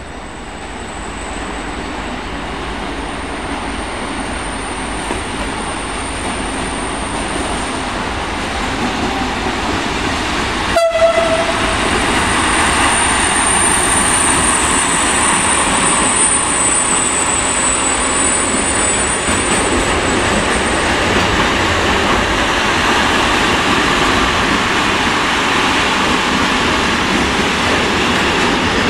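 Freight train of tank-container wagons rolling past, a steady rumble and rattle of wheels on rail that swells for the first dozen seconds, then holds steady. About eleven seconds in there is a sharp knock and a short horn note.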